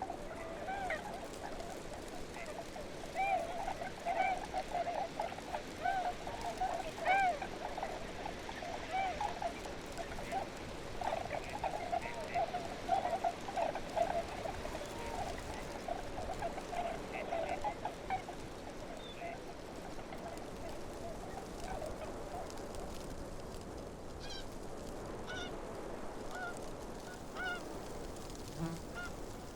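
A flock of geese honking in a tundra soundscape, many calls overlapping in the first half and thinning out in the second, over a steady background hiss. Thinner, higher bird calls come in near the end.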